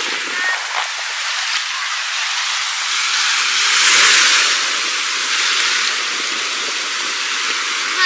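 Rough sea surf breaking and washing up the sandy shore in a storm: a steady hiss of foaming water that swells about halfway through as a wave breaks close by.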